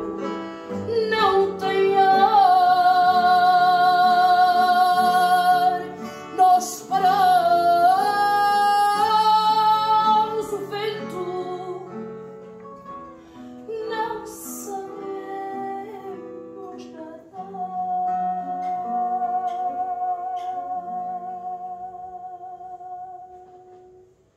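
A woman singing fado in long, held notes with vibrato, accompanied by a man picking an acoustic guitar. The song closes on one long held note that fades away near the end.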